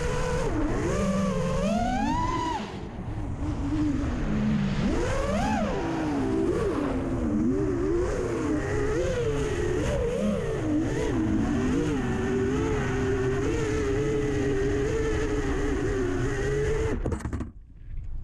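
FPV racing quadcopter's brushless motors (T-Motor F80s on a 4S pack) whining, the pitch rising and falling with throttle, with sharp climbs about two seconds in and again near five seconds. The whine cuts off suddenly near the end, leaving wind buffeting the microphone.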